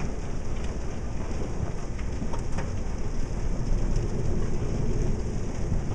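Hail mixed with heavy rain pelting a car and the pavement: a steady hiss with a few scattered sharp ticks of hailstones striking.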